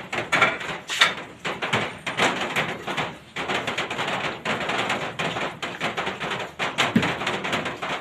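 Cream sauce heating in a metal pan on low heat, crackling and sputtering with quick irregular clicks and pops as it nears a simmer, with one louder knock near the end.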